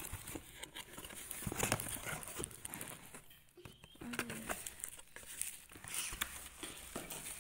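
Cardboard box and cellophane-wrapped makeup palette being handled and unpacked: irregular rustling and crinkling with small clicks and knocks.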